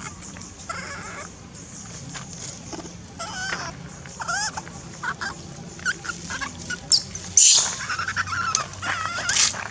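Long-tailed macaques calling: a string of short, squeaky calls that glide up and down in pitch, with a loud, harsh scream about seven and a half seconds in.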